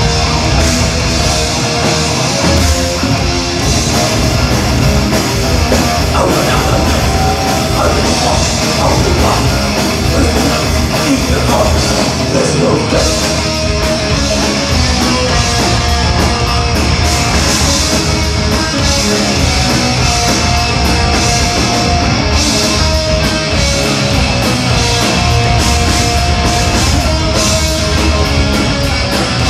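Thrash metal band playing live and loud: distorted electric guitars, bass and a driving drum kit, without a break.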